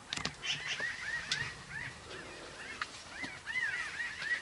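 Birds calling: a quick run of short, arching chirps, several a second, with a few sharp clicks in the first second and a half.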